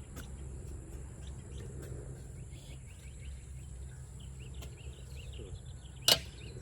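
Small birds chirping in quick short notes over a low steady rumble, with one sharp knock about six seconds in, the loudest sound.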